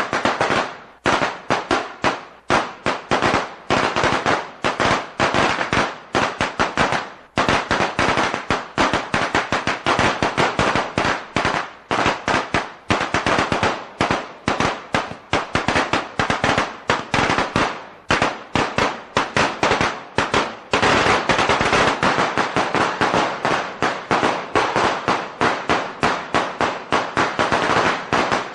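A string of Chinese firecrackers going off in rapid, uneven cracks. The bangs come thickest from about three quarters of the way in.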